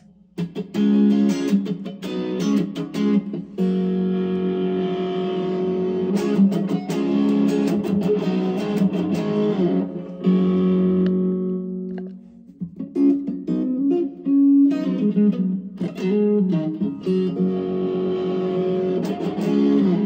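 Electric guitar played through an engaged BJpress Soul Clone overdrive pedal, a Klon Centaur clone, into a Fender Mustang amp's VOX AC30 simulation: overdriven chords and ringing notes, with a short break a little past halfway.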